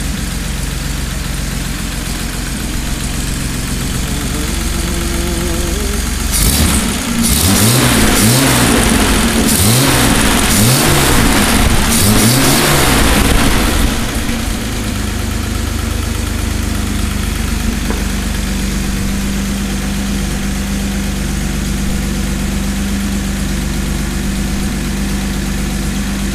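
1958 Jaguar XK inline-six with twin SU carburettors running on an engine stand. It idles steadily, then is revved in about six quick throttle blips, each pitch rising and falling, and settles back to a steady idle for the second half.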